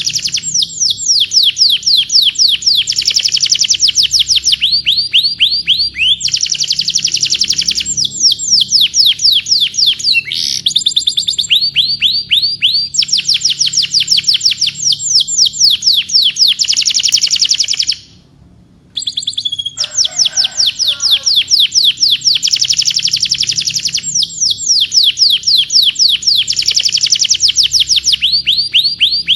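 Domestic canary singing long rolling trills of rapid, repeated falling whistled notes that speed up and slow down from phrase to phrase. The song breaks off for about a second roughly two-thirds of the way through, then goes on.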